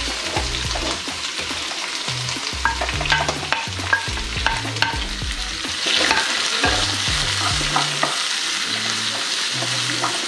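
Chopped onions frying in hot oil with mustard seeds, sizzling steadily while a spoon stirs them, with frequent short clicks and scrapes against the pan.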